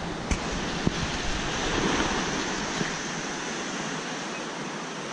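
Sea waves washing onto the shore, an even rushing hiss, with wind rumbling on the microphone for the first few seconds.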